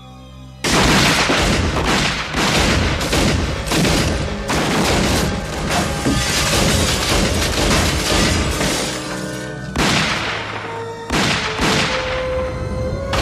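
Film soundtrack: a burst of gunfire starts suddenly about a second in, with shot after shot in quick succession and glass breaking, under dramatic music. The shots thin out to a few single blasts near the end as the music comes through.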